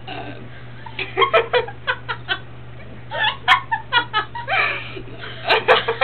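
Girls giggling and laughing in short fits of quick, repeated bursts: one about a second in, another around the middle, and a third near the end.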